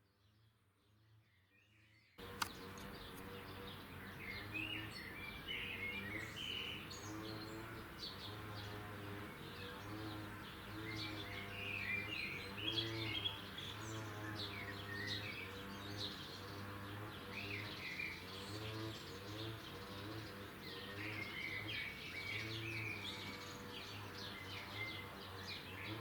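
Near silence, then about two seconds in, birdsong starts abruptly: many small birds chirping over a steady low hum.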